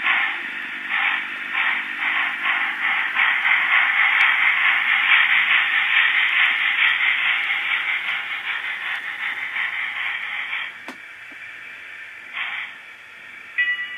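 Digital sound decoder in an N-scale Walthers Y3 2-8-8-2 model steam locomotive playing exhaust chuffs. The chuffs quicken until they merge into a steady hiss, then the sound drops away with a click about eleven seconds in.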